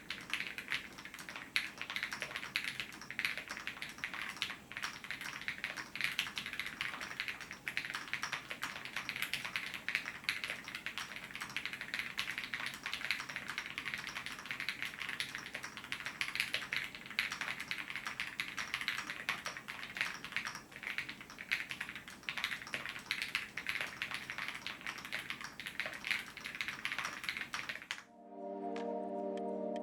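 Continuous fast typing on a custom acrylic Owlab Spring mechanical keyboard with KTT Peach linear switches and PBT keycaps: a dense run of key clacks. It stops abruptly near the end and gives way to music.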